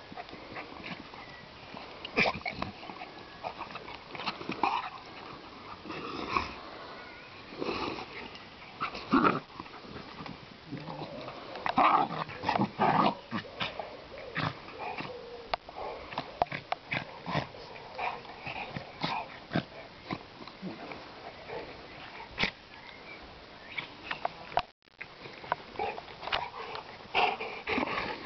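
A large dog and a puppy play-fighting: a run of short vocal sounds and mouth noises from the two dogs, with a few longer calls about halfway through.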